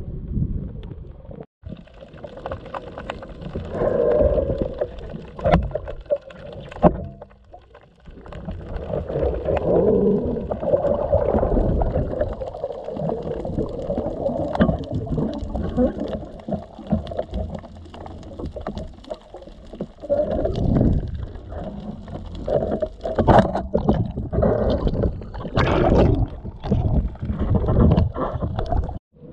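Muffled underwater rumbling and sloshing of water around a camera in its waterproof housing as a freediver swims, broken by scattered knocks and clicks.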